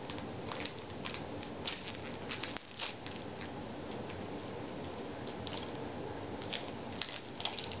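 Trading-card booster pack wrapper crinkling and cards being handled: irregular small crackles and clicks over a faint steady hiss.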